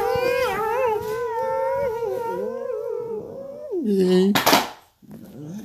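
A long, high, wavering howl held for about three and a half seconds, then a short low call. A brief burst of hiss follows about four and a half seconds in.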